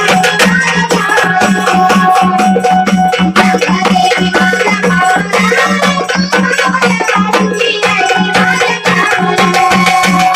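Gondhal devotional folk music: quick, dense hand-drum strokes and jingling percussion over a steady low drone, with a melody line above.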